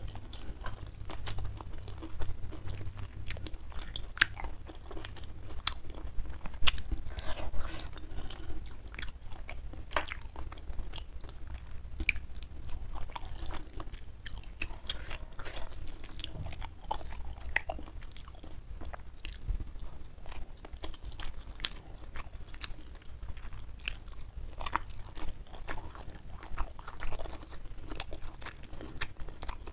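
Close-miked ASMR eating sounds: a person chewing and biting food, with many short, sharp crunches and wet mouth clicks scattered throughout.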